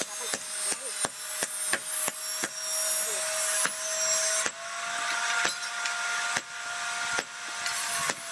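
Hammer blows on a red-hot iron cleaver blank on an anvil, irregular sharp strikes about two a second, coming less often in the second half. Under them runs a steady high hum with a hiss.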